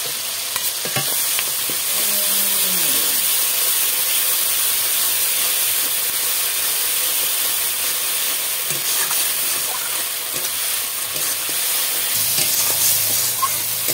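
Tomato, green pea and spice masala sizzling in hot oil in a metal kadai as a flat metal spatula stirs it, with a faint scrape or click of the spatula on the pan now and then.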